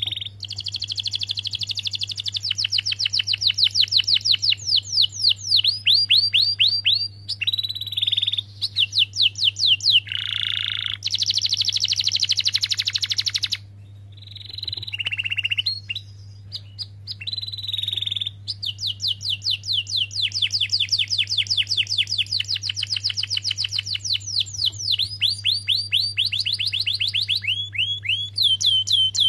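Domestic canary singing a long song of rolling trills: runs of fast, evenly repeated whistled notes, each run on a different note, broken by brief pauses. A low steady hum runs underneath.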